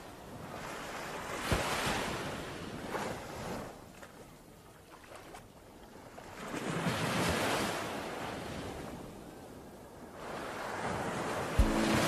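Ocean waves surging and washing in three slow swells. Near the end a music track comes in with heavy drum hits.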